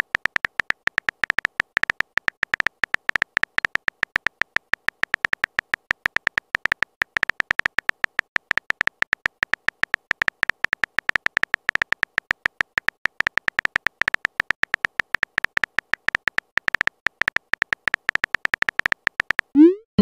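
Rapid, even run of short high-pitched keyboard ticks from a texting app's typing sound effect as a message is typed out letter by letter. Near the end a short rising swoosh as the message is sent.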